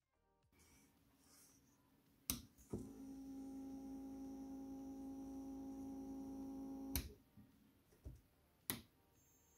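A toggle switch clicks on and a small brushed DC motor, powered from an ATX PC power supply, runs with a steady whine for about four seconds. Then another click and it stops. A couple more sharp clicks follow near the end.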